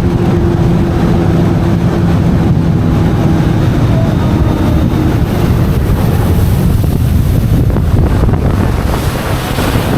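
Jet ski engine running, its steady hum fading out about halfway through, under heavy wind buffeting on the microphone and rushing water.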